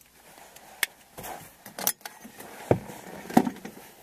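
Clicks, knocks and rustling of things being handled inside a van's cabin, with about four sharper knocks spread through.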